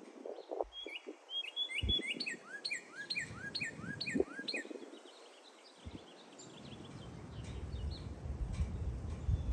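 A small red songbird singing a quick run of repeated rising, slurred whistles about two seconds in, with scattered higher chirps after. Wind rumbles and buffets on the microphone, growing stronger in the second half.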